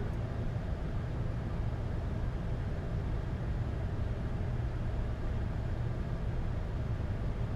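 Steady low rumble of Boeing 747-8 flight-deck background noise, engines and airflow, with no distinct events.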